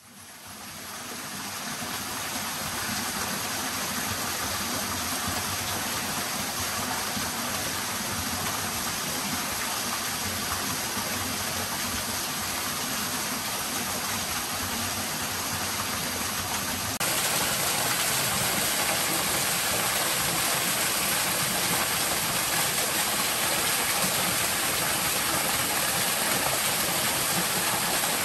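Steady rush of a forest stream and small waterfall, fading in at the start and growing louder about two-thirds of the way through.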